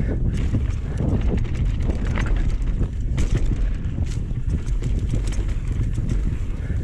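Wind rushing over the microphone of a camera on a moving mountain bike, with irregular knocks and rattles from the bike on the dirt trail.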